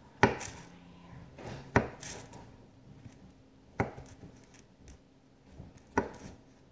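Knife chopping strawberries on a paper plate, with four sharp knocks spaced about two seconds apart.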